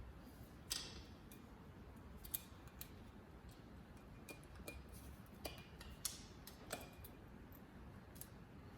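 Scattered light metallic clicks and taps, about seven spread over several seconds, from hand tools and small parts being handled on a motorcycle cylinder head.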